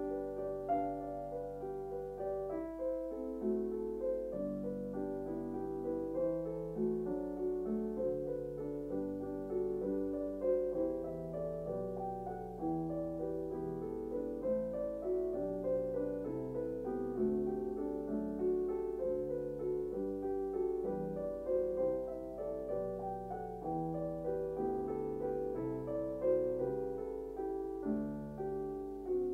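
Background piano music: a soft, slow-moving tune of single notes and chords played throughout.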